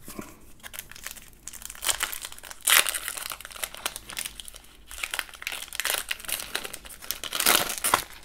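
Foil trading-card pack wrapper being torn open and crinkled by hand, the loudest crinkling about three seconds in and again near the end.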